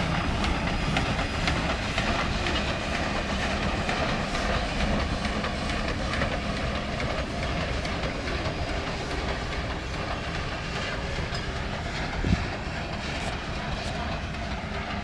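Sumpter Valley Railway's narrow-gauge train rolling along the track: a steady rumble of wheels on rail with clickety-clack, and one sharp knock about twelve seconds in.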